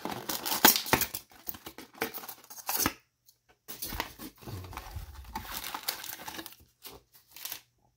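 Foil-wrapped trading card packs and a cardboard box rustling and crinkling as the packs are slid out of the box. It breaks off briefly about three seconds in.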